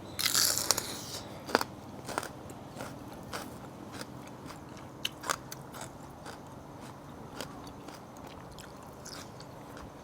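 A person bites into crunchy raw vegetables and chews. A loud crunch comes about half a second long near the start, followed by scattered crisp chewing clicks.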